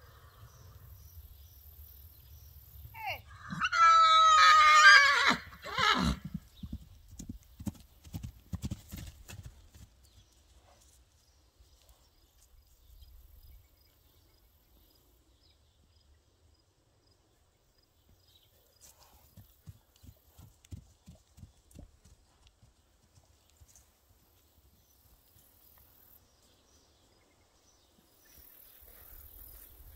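A horse whinnies once, loud and long, about three seconds in, its pitch wavering and falling as it trails off into a run of low pulses. Fainter low pulses come and go later.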